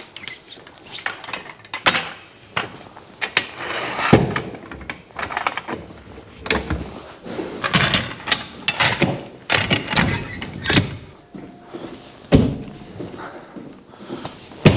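Irregular thuds, knocks and clattering from loading work in a truck's box trailer, as a pallet jack and crates are shifted over the trailer floor, with a few heavier thuds in among the rattling.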